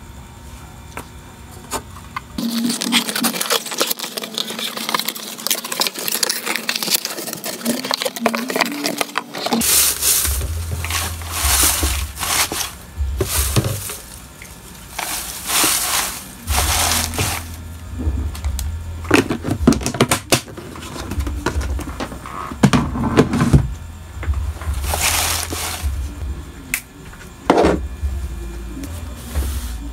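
Packing materials rustling and crinkling: plastic sleeves and handfuls of crinkle-cut kraft paper shred handled and dropped into a cardboard mailer box. The noise comes in irregular bursts of a second or two, with a few light taps.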